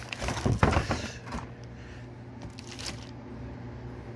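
Rustling and a few light knocks of objects being handled in the first second and a half, then a faint steady low hum with occasional soft ticks.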